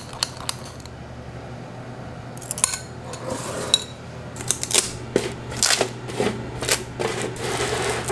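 A metal utensil clinks against a glass measuring cup as a powdered-sugar glaze is stirred, about three clinks a second for the first second. Later come scattered light knocks and rustling as baked cookies are pushed together on parchment paper.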